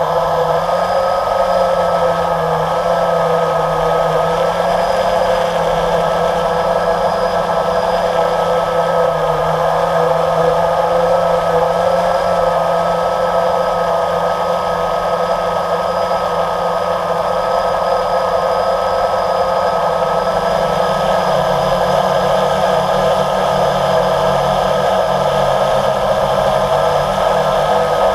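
Electric motors and propellers of a hovering multirotor drone, heard from its own onboard camera: a steady, loud whine with low tones that drift up and down as the motors adjust.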